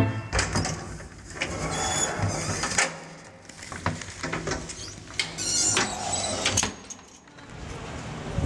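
Metal rattling and scraping in two stretches, as of an old lift's folding lattice gate being slid, with scattered clicks over a low steady hum.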